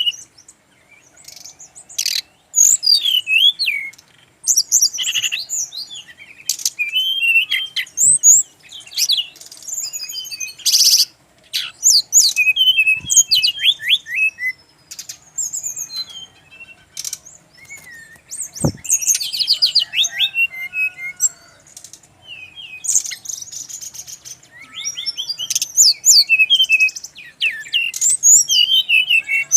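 Brown-chested jungle flycatcher (sikatan rimba dada coklat) singing: bursts of rapid, high chirps and trills in varied phrases, broken by short pauses.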